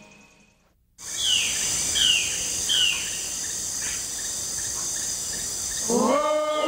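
A steady high-pitched insect chorus, like crickets trilling, comes in about a second in, with a bird giving three short falling calls. Music swells in near the end.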